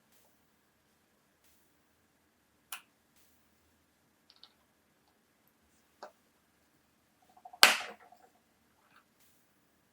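A few separate small clicks and taps of watchmaker's tools on small metal watch parts. The loudest comes about three-quarters of the way in, with a brief ring and a few lighter clicks just after it.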